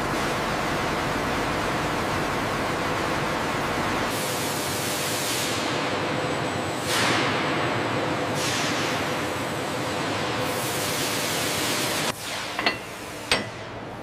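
Hydraulic oil gushing from an open hose fitting, a steady rushing hiss. After about four seconds it gives way to a few long swelling whooshes of a rag rubbed along a polished steel hydraulic cylinder. Near the end come two sharp metallic clinks from a steel lifting shackle.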